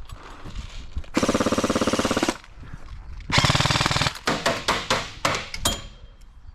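Airsoft gun firing two full-auto bursts of about a second each, then a quick string of single shots.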